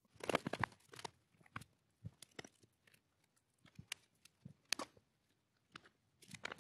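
Scattered light clicks, taps and rustles of small items being handled, with a short cluster of them near the start and single ticks after that.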